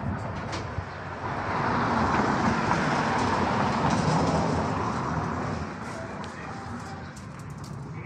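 A vehicle passing on the street: its noise swells from about a second in, is loudest for a few seconds, and fades away by about six seconds.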